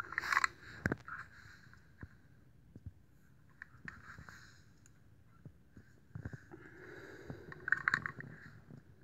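Handling noise from a WE 1911 airsoft pistol being turned over in the hand: scattered light clicks and taps, with two louder scraping bursts, one just after the start and one about eight seconds in.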